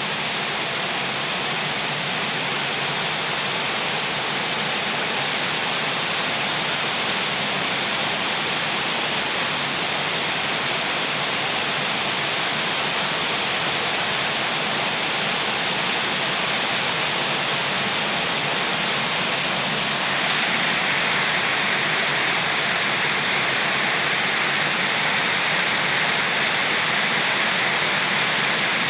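Heavy rain pouring down steadily in a storm, an even hiss that grows a little louder about two-thirds of the way through.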